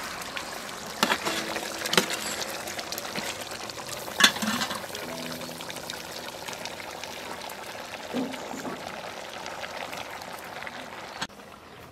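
Chicken curry boiling and bubbling in a metal pot, with a few sharp knocks about one, two and four seconds in, as onion, enoki mushrooms and pineapple are tipped in from a woven basket. The sound cuts off suddenly near the end.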